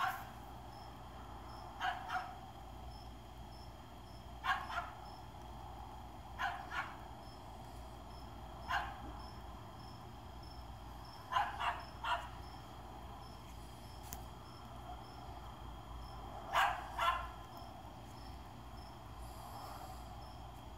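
A dog barking: about a dozen short barks, many in pairs, a few seconds apart.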